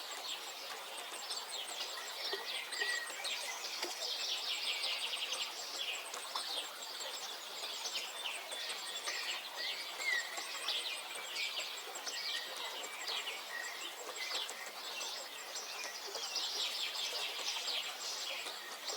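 Birds chirping and singing, many short rapid calls overlapping, over a steady background hiss.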